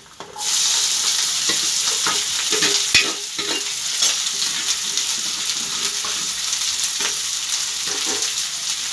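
Chopped onions dropped into a pan of hot oil with fried garlic: the sizzle starts suddenly just after the start and keeps going, with a spatula stirring and scraping through the onions as they sauté.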